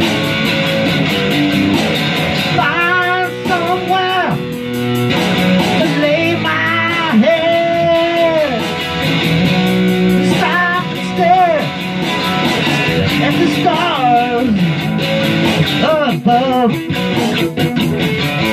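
Electric guitar playing a rock groove, with an amplified harmonica cupped against a handheld microphone wailing several phrases of bent, wavering notes over it.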